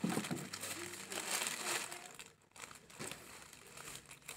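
Clear plastic wrap crinkling as hands fold and press it over a tray, with a brief pause about two and a half seconds in.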